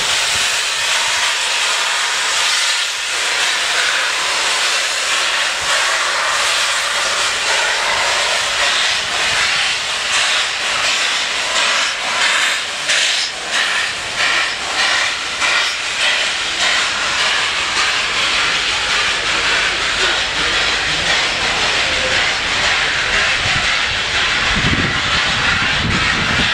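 Merchant Navy Class steam locomotive letting off steam: a loud, continuous hiss, with a low rumble coming in near the end.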